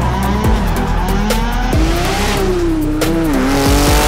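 Drift cars' engines revving up and down with tyres squealing and skidding, over background music.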